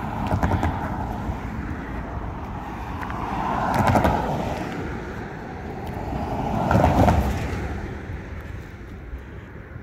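Two cars passing by on the road, one after the other, their tyre and engine noise swelling and fading, the first peaking about four seconds in and the second about seven seconds in.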